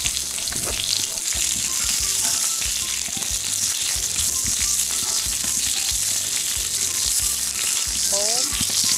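Pork belly and sausages sizzling steadily on a round grill plate over a wood fire, with short knocks and clicks of metal tongs as the meat is turned.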